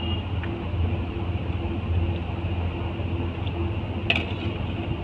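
Steady low roar of a commercial gas burner firing under an iron kadai of korma gravy, with one short metallic click about four seconds in.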